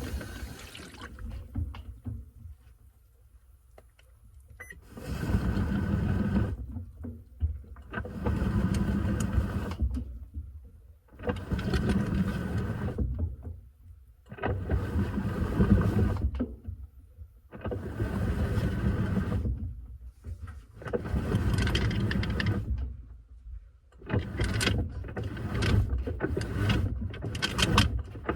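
Washing machine in its wash cycle, the tub or agitator turning in bursts of about two seconds and churning the water, pausing briefly between strokes about every three seconds. Near the end the strokes come quicker and shorter.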